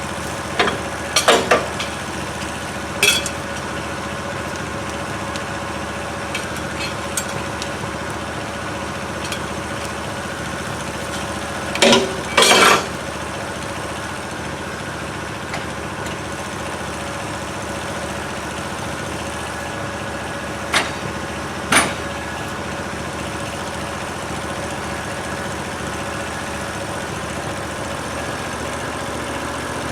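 Norwood LumberMate LM29 band sawmill's engine idling steadily, with a few sharp metal clanks over it, the loudest a double clank about twelve seconds in.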